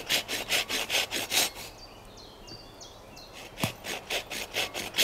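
Thin-bladed hand saw cutting a slot into the end of a small piece of wood, in quick back-and-forth strokes of about three to four a second. The sawing stops after about a second and a half and starts again near the end.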